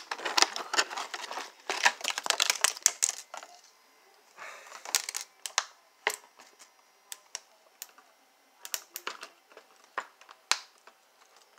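Clear plastic packaging being handled: dense crinkling and crackling for the first few seconds, then scattered sharp clicks and taps of plastic.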